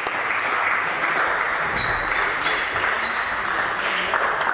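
Table tennis rally: the plastic ball clicking sharply off the bats and the table, several hits about half a second apart, over a steady hiss.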